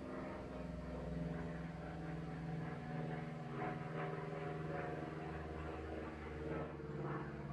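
Steady mechanical hum of a motor: several held tones over a low drone, shifting a little in pitch.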